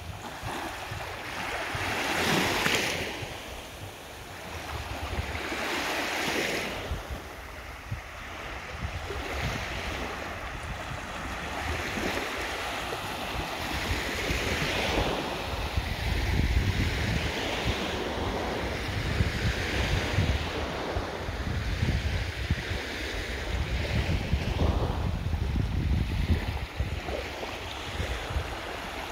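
Small waves washing up onto a sandy shore, swelling and falling away every few seconds, with wind buffeting the microphone.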